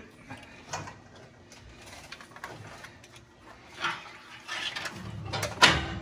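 Light clicks and rustling of a hand socket tool being fitted to a heater hose clamp under the hood, with one sharp knock near the end.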